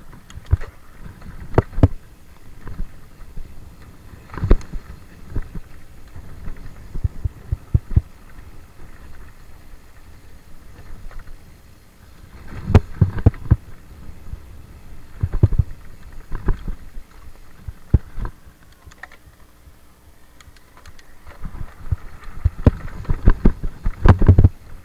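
Mountain bike rattling and clunking as it rides fast over a rough dirt trail: irregular sharp knocks from the bike jolting over bumps, over a low rumble of tyres on dirt. The knocks come in heavier clusters about halfway through and near the end.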